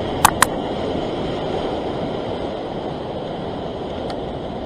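Surf breaking and washing over coastal rock ledges, a steady rushing noise. Two sharp clicks sound about a quarter second in.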